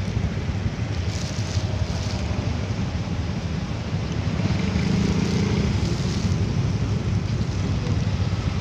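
Wind buffeting the microphone over the low rumble of a motorcycle engine, with a steadier low hum for a moment about halfway through.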